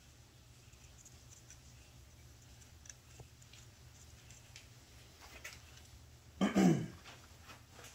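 Quiet workshop room tone with a steady low hum and a few faint clicks as parts are handled on a bare engine block. About six and a half seconds in comes one short, loud voice-like sound.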